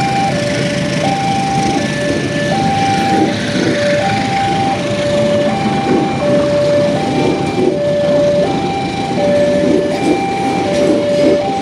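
Railway level crossing warning alarm sounding its electronic two-tone ding-dong, a high and a low note alternating about every three-quarters of a second, over a steady rumble of a train.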